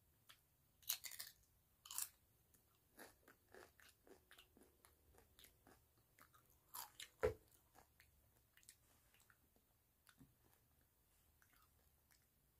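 Fried tortilla chips from a tostada bowl crunched and chewed close to the microphone: scattered sharp crackles, with louder bites near one and two seconds in and the loudest about seven seconds in.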